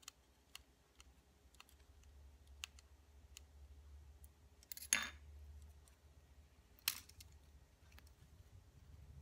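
Small screwdriver backing a tiny screw out of a Holy Stone HS170 mini drone's plastic frame: faint scattered ticks and scrapes, with two sharper clicks about five and seven seconds in.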